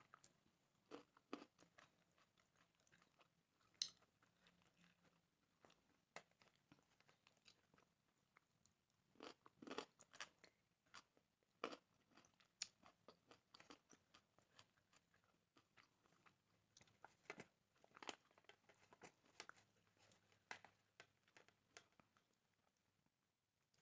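A person eating close to the microphone: quiet, irregular crunching and chewing as raw carrot and grilled chicken are bitten and chewed.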